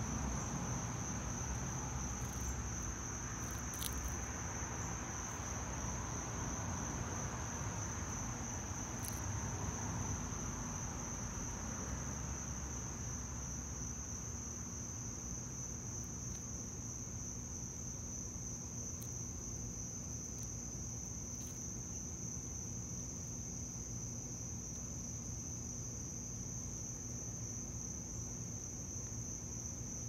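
Steady, high-pitched chorus of singing insects: an even, continuous drone with a few faint clicks over it.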